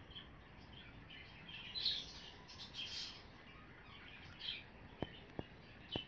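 A hummingbird giving faint, high, squeaky chirps in several short bouts. Two sharp clicks come about five seconds in.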